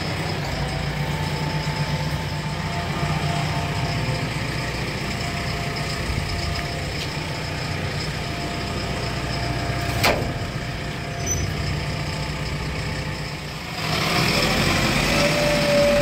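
JCB 3DX backhoe loader's diesel engine running steadily, with one sharp click about ten seconds in. The engine grows louder about two seconds before the end.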